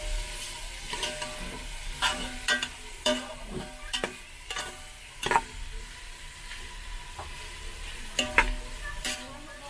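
Chopped beef innards sizzling as they sauté in hot oil, being cooked until they render their own fat. A spatula scrapes and knocks against the pan every second or so as they are stirred, with the sharpest knocks about five seconds in and near the end.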